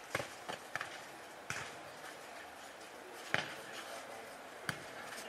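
Futnet ball in a rally: a string of sharp slaps as it is kicked and bounces on the hard court, irregularly spaced, the loudest about three seconds in.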